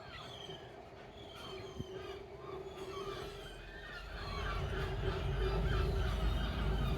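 Freight train rumbling past, its low rumble growing louder about four seconds in over a steady hum, while small birds chirp throughout.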